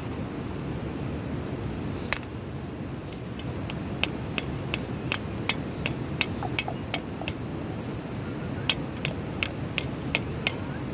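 Sharp taps in a steady rhythm, about two and a half a second, in two runs with a pause between them, over a steady background rush.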